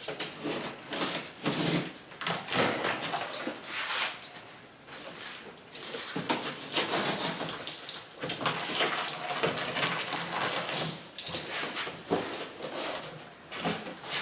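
Cardboard shipping box being opened and its contents handled: irregular scraping, rustling and a few knocks.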